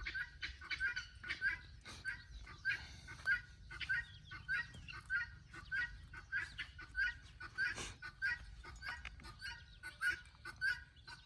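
Birds calling: short, high notes repeated at an even pace, nearly twice a second, with one sharp click about eight seconds in.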